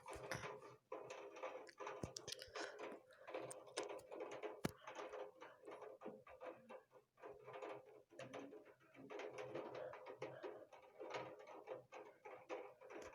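Heavy rain falling: a dense, irregular pattering of drops ticking and tapping over a faint hiss.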